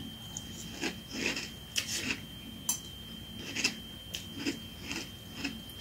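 Crunchy, marshmallow-studded fruity rice cereal being chewed in milk. Faint irregular crunches come every half second or so.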